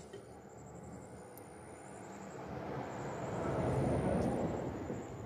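A vehicle passing by: a broad engine-and-road noise that swells gradually to a peak about four seconds in, then begins to fade.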